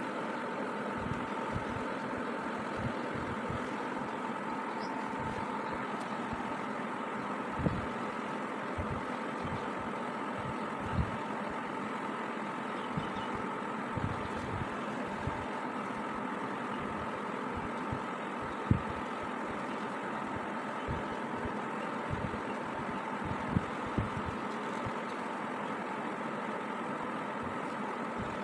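A steady background hum with two faint constant tones, broken by scattered soft low bumps as the embroidery hoop and the phone are handled.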